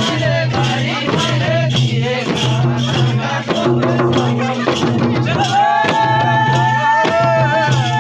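Nepali chudka folk song accompanying a dance: singing over a steady drum beat and light percussion, with a long held note near the end.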